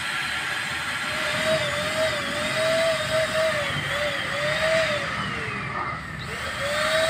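Multipro ESP-800JY electric paint spray gun running while thinner is sprayed through it to flush paint out of the nozzle. A steady motor whine with spray hiss; the whine's pitch wavers up and down and dips briefly about six seconds in, then picks up again.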